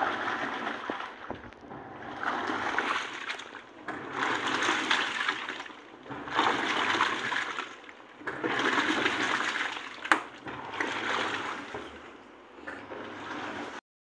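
Walton WWM Q80 top-loading washing machine in its wash cycle: clothes and soapy water sloshing and swishing in the drum, swelling and fading about every two seconds as the wash action reverses.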